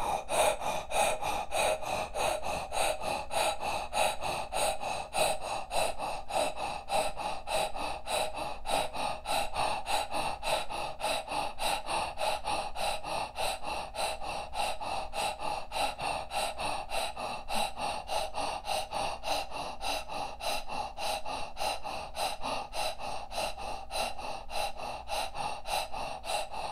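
A woman breathing rapidly in and out through a rounded mouth in a quick, even rhythm, each inhale matched by an exhale of the same length: the Kundalini-style self-care breath.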